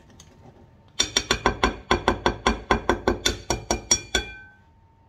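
Metal wire whisk beating batter in a glass mixing bowl, its wires clinking against the glass in a fast, even run of about eight strikes a second with a ringing tone from the bowl. It starts about a second in and stops about three seconds later.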